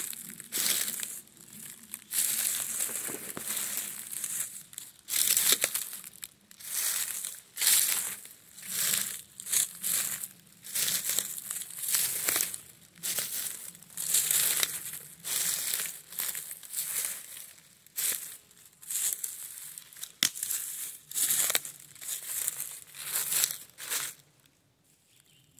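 Footsteps crunching through dry fallen leaves on a forest floor, at a walking pace of about one step a second, stopping shortly before the end.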